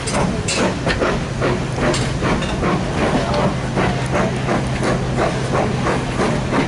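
Train running along the platform, its wheels clicking over the rail joints several times a second over a steady low hum and hiss.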